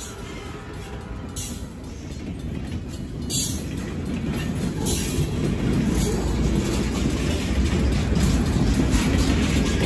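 Freight cars of a CN train rolling past over a grade crossing: a low rumble of steel wheels on rail, with irregular clacks as wheels cross the joints, growing steadily louder. The crossing's mechanical bell rings faintly underneath at first.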